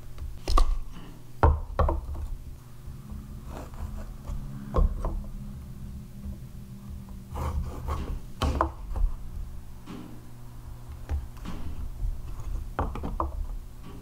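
Scattered light clicks, taps and scratches of hand marking tools on a door slab: a tape measure and a small metal square being handled and set down, and a pencil drawing lines. A steady low hum runs underneath.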